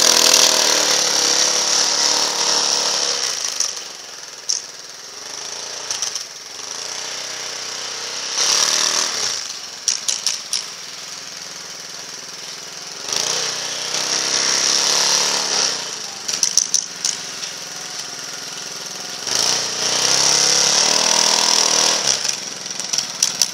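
Engine of a Leshy 2x2M two-wheel-drive snow motorcycle revving as it pulls away through deep snow. It drops off after about three seconds, then swells up again several times with bursts of throttle as the bike climbs a snow pile. A few short sharp clicks sit between the swells.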